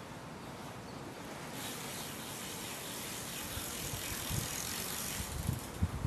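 BMX bike's freewheel ratchet ticking fast as the bike rolls on concrete. Low knocks and bumps come in near the end.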